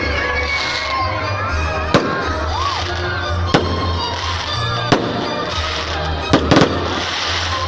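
Aerial fireworks going off: about six sharp bangs at uneven intervals of one to two seconds, two of them close together near the end, with whistles gliding up and down and crackling fizz between the bursts, over background music with a steady bass.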